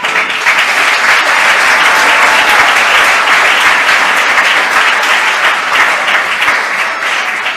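Audience applauding, starting suddenly and holding steady, then easing off near the end.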